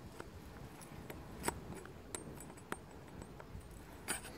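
Flat-bladed screwdriver working the top-cover screw on a Tondu 45 chainsaw: a few small, separate clicks of the blade on the screw and cover, with a short cluster of clicks near the end.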